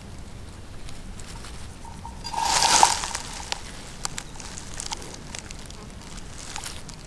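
A hand rustling through grass and low leaves while picking wild strawberries, with a louder swish of brushed foliage a little under three seconds in and a few small sharp clicks of stems being plucked afterwards.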